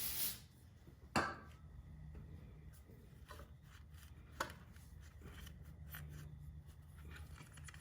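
A rag wiping and rubbing oil off the crankshaft seal with cleaner, squeaking against the surface, with small scattered ticks. A short hiss at the very start, and sharp knocks about a second in and around four and a half seconds.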